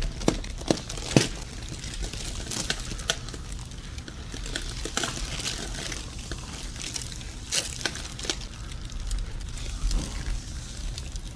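Rustling and crinkling with scattered sharp clicks, the loudest about a second in.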